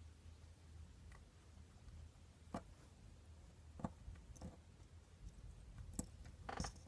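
A hairless guinea pig's teeth and claws tapping on a small enamel bucket and the figurine in it: a handful of faint, separate clicks, with a quick cluster of them near the end, over a low steady hum.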